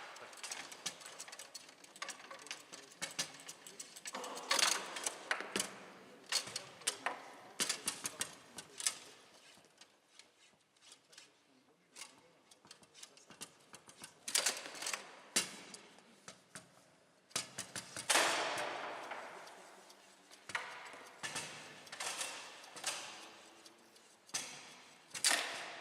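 Foosball being played on a Bonzini table: irregular sharp clacks of the ball struck by the figures and hitting the table walls, with rods knocking against the bumpers. The clacks come in quick clusters, with a few harder shots ringing briefly.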